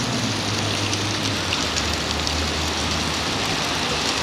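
Steady rain with water pouring and splashing down off the bridge: a dense hiss full of small drop ticks. A low engine hum runs underneath and drops in pitch about a second and a half in.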